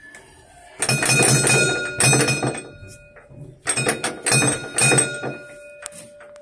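Tram bell rung in two bursts of rapid clangs about a second apart, its ringing tone hanging on after each burst. It is the bell just fixed, now sounding.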